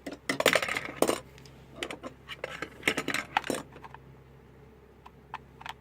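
Clicks and clatters of a cheap analog multimeter's plastic case and parts being handled as it is opened up, busiest in the first few seconds, then a few faint ticks.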